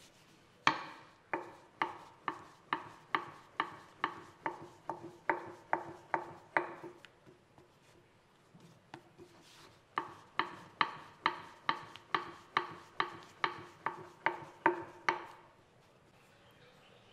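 A thin wooden rolling pin clacking rhythmically on a stone slab as bun wrappers are rolled out, a little over two knocks a second. There are two runs of about a dozen knocks each, with a pause of a few seconds between them.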